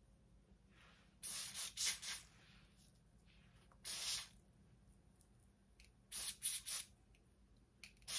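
Ebin lace melting spray misted onto a lace wig's hairline in about eight short hissing sprays, bunched in quick twos and threes.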